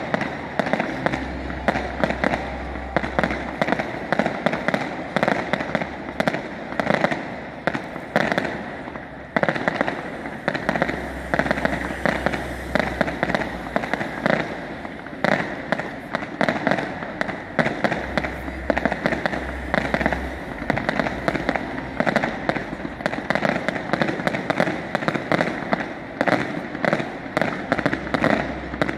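Fireworks display: aerial shells bursting in a rapid, continuous string of bangs and crackles.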